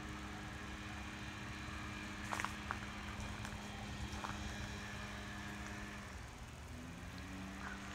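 A steady, low motor or engine hum with a low rumble under it. Its pitch drops slightly about six seconds in, and a few faint clicks come through around two and a half seconds in.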